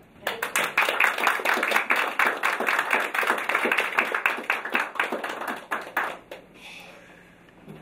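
Audience applauding. Dense, irregular clapping starts sharply just after the start and thins out and dies away about six seconds in.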